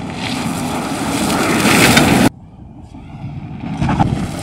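Ford F-150 Lightning Switchgear electric truck sliding hard on loose dirt, its 37-inch tyres churning and spraying soil. The noise builds, stops abruptly about two seconds in, and builds again near the end after a quieter stretch.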